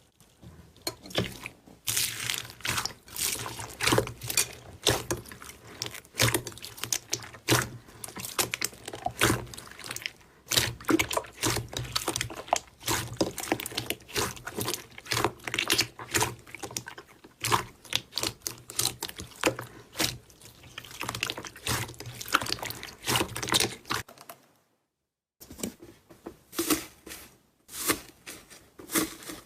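Slime being squeezed and poked by hand: rapid, irregular wet clicks and pops, broken once by a short cut to silence.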